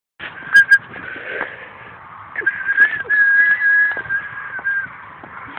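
A person whistling: two short, sharp high notes, then a long run of nearly level high whistled notes.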